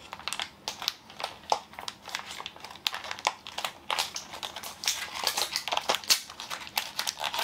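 Plastic wrapping of a Zuru Mini Brands toy capsule crinkling and crackling as it is handled and torn open: a dense, irregular run of rustles and small clicks.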